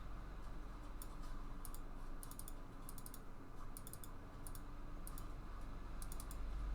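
Quick clusters of light clicks from typing and clicking on a computer keyboard, coming in short bursts every half second or so, over a faint steady low hum.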